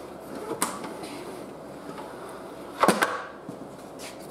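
A light click, then a sharp double knock of metal about three seconds in, as a lawnmower engine's bent crankshaft is turned by hand in a crankshaft straightener jig while its runout is checked.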